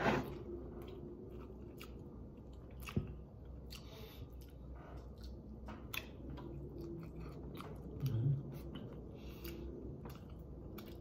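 A person chewing and eating chicken with the fingers: small wet mouth clicks and smacks, with a brief low hum from the eater a little after eight seconds.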